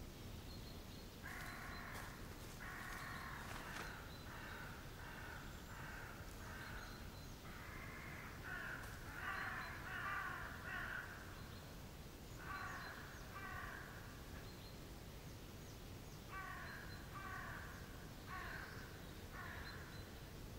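Crows cawing over and over, harsh calls coming in runs of several with short pauses between the runs.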